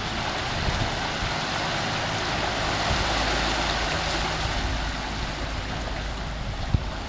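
Sea surf surging into a narrow channel in raised coral rock and washing over the stones, a steady rush of water that swells about three seconds in and eases toward the end.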